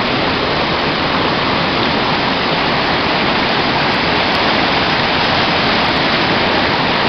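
Waterfall: a steady, loud rush of falling water, with no change in level.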